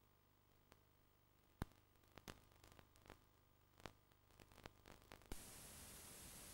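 Near silence on a recording, broken by scattered faint clicks and crackles. About five seconds in, a steady static hiss starts suddenly and carries on.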